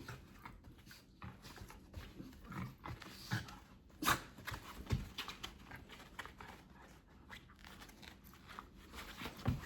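A dog and a cat playing together: irregular scuffling with light knocks and taps, the loudest a sharp knock about four seconds in.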